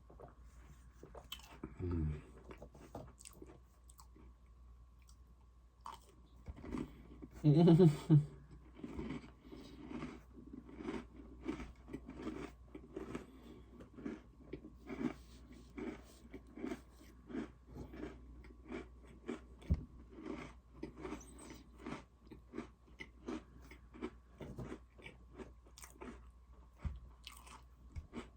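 Close-miked chewing and crunching of Oreo cookies, with bites and chews coming about twice a second through most of it. A brief louder burst stands out about eight seconds in.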